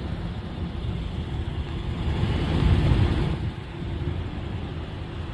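Steady engine and road noise of a moving car, with a louder swell about two to three seconds in that fades back down.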